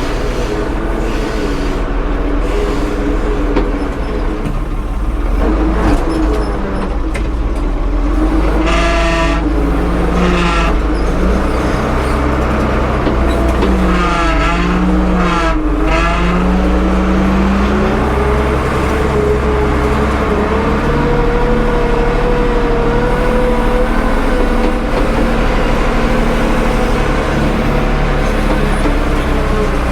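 A vehicle engine running steadily under light load, its pitch drifting up and down a little as the revs change.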